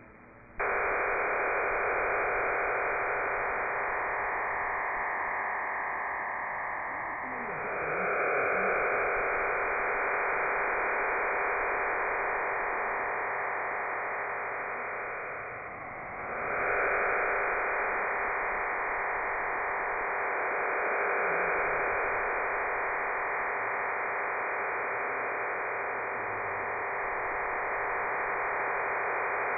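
Digital data burst of the Cuban HM01 number station heard over a shortwave receiver in AM: an even, dense hiss confined to a narrow band, in the RDFT multi-carrier data mode HM01 uses between its voice groups. It starts abruptly about half a second in and dips twice with shortwave fading, around a quarter and halfway through.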